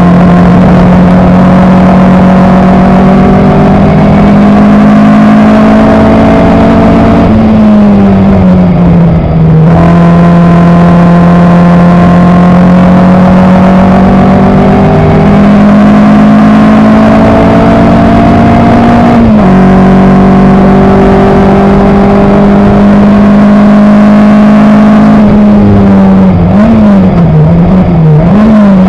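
Coventry Climax FWA four-cylinder racing engine of an Elva MkIV, very loud from the cockpit at racing speed. It holds long pulls at high revs with the pitch slowly climbing, the revs drop for a couple of seconds about a quarter of the way through, and near the end they waver quickly up and down.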